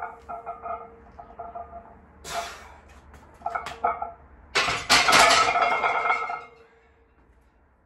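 Iron plates on a heavily loaded barbell clinking and rattling as a back squat is driven up, with a short hard breath about two seconds in. About four and a half seconds in comes the loudest part: the barbell clanking into the power rack's hooks, its plates rattling and ringing for nearly two seconds.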